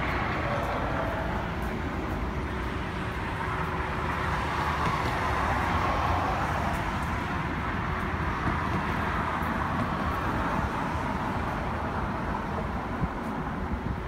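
Steady outdoor background rumble of distant road traffic and machinery, even throughout with no single sound standing out.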